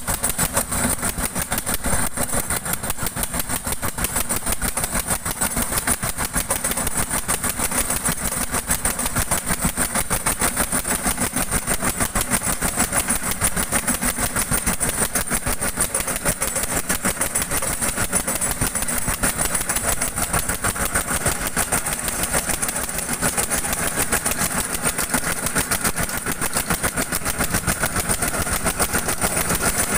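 An engine running steadily with a fast, even beat of firing pulses, holding the same speed.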